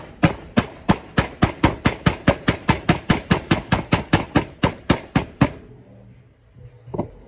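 Small hammer tapping a ball bearing down onto the stator shaft of a CYC X1 Pro Gen 2 e-bike mid-drive motor, pressing the bearing into place. A fast, even run of sharp metal knocks, about four a second, for some five seconds, then stops; a single knock follows near the end.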